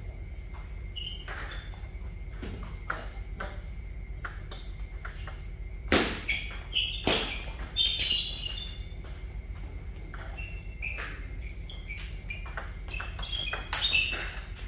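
Celluloid-type table tennis balls clicking off paddles and tables: scattered sharp ticks throughout, a louder cluster of clicks about six to eight seconds in, and another burst near the end as a rally gets going.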